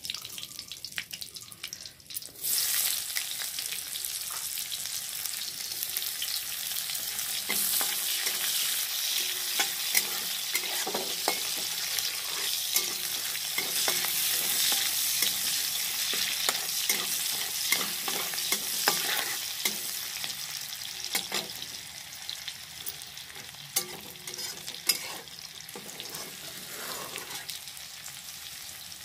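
Tadka for dal frying in hot oil in a pan: a steady sizzle that starts loudly about two and a half seconds in, with scattered sharp clicks as it is stirred, easing somewhat near the end.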